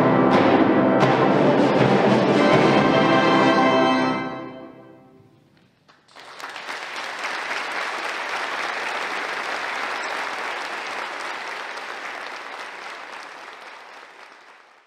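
A concert band and organ hold a loud final chord, with timpani strokes, which dies away in the church's long reverberation about four to five seconds in. Then the audience applauds, the applause fading out near the end.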